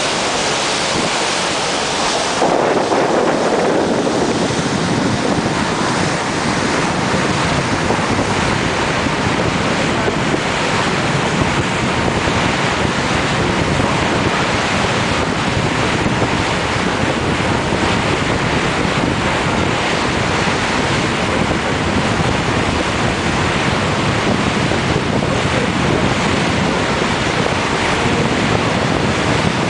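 Steady loud rush of wind buffeting the microphone over water churning along the hull of a moving boat, thickening about two seconds in.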